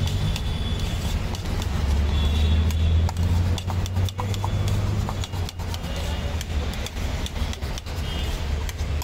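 Road traffic rumbling, loudest a couple of seconds in, with frequent sharp clicks and clatter over it.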